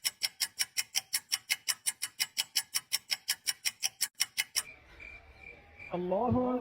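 Clock ticking, rapid and even at about six ticks a second, stopping about four and a half seconds in. Near the end a voice begins a long sung call.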